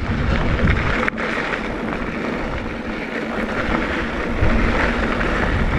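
Wind rushing over a handlebar-mounted action camera's microphone, with mountain bike tyres rolling over a dirt singletrack on a fast descent. A single sharp click about a second in.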